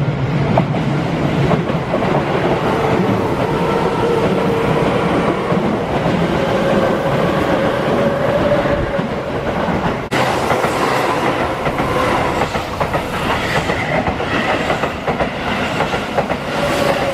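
Keihan electric commuter train running past a level crossing at close range, its wheels clacking over the rail joints. About ten seconds in the sound breaks off abruptly and another passing train follows.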